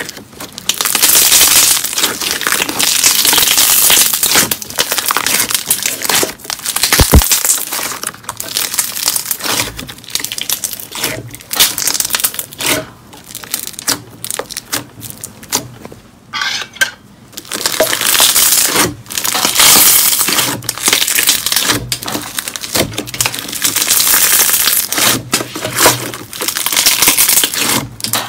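Hands squishing and kneading a mass of clear 'liquid glass' hand-gum slime, giving dense crackling, crinkly popping that comes in waves and eases off twice.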